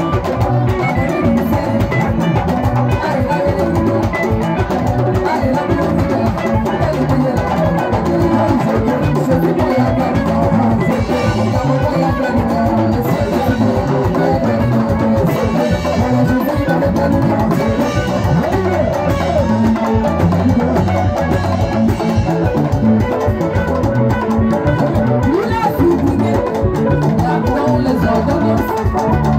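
Live band music with electric guitars, keyboard and drum kit, playing a continuous, steady dance beat.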